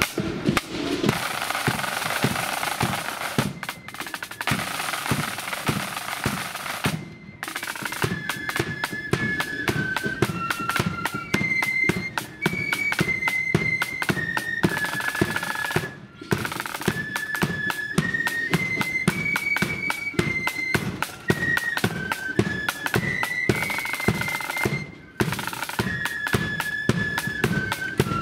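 Marching flute band of the blood-and-thunder kind: snare drums and bass drum play alone for about the first seven seconds, then the flutes come in with a marching tune over a steady drum beat, broken by short pauses between phrases.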